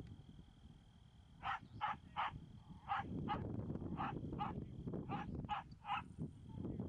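Herding dog barking at a bunch of steers to drive them, with about ten short barks in quick runs of two or three, starting about a second and a half in.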